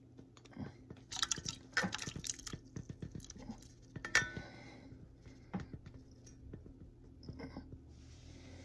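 Simmered birch polypore chunks and water being poured from a slow-cooker pot into a stainless steel saucepan: irregular clinks of pot against pan and splashes as the chunks drop into the water, busiest over the first few seconds, with a ringing clink about four seconds in.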